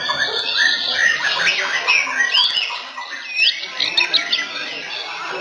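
White-rumped shamas singing in competition: several birds at once in a dense, overlapping stream of whistles, chirps and harsher notes. Loud looping whistles stand out around the middle.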